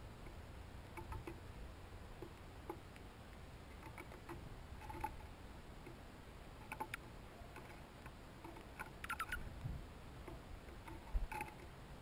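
Dark-eyed junco pecking at seed on a wooden board feeder: faint, scattered light taps, with a quick run of several taps about nine seconds in and a louder knock near the end.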